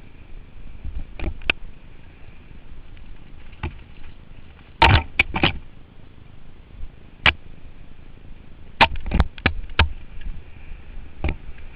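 Mountain bike clattering down a rough, rocky trail, heard from a helmet-mounted camera. Sharp knocks and rattles from the bike come singly and in two quick clusters, about five and nine seconds in, over steady riding noise.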